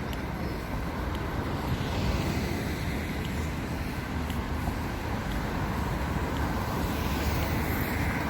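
Steady outdoor street noise: a low rumble of passing traffic mixed with wind buffeting the microphone.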